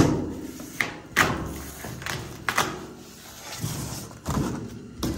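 Cardboard template being pulled off a 1967 Camaro's steel trunk lid by hand: a string of sharp knocks and scrapes, about one every second or so, each fading quickly.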